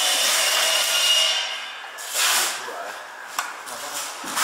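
Steel parts of a YX-P06 single-punch tablet press rubbing and scraping against each other as they are fitted by hand. A first long scrape carries a faint high tone, followed by a shorter scrape about two seconds in and a few light clicks.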